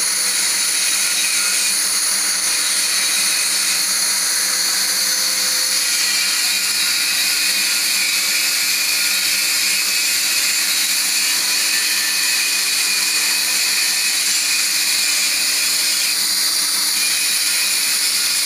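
Handheld plasma cutter cutting steel plate: a steady, unbroken hiss with a faint steady low hum underneath.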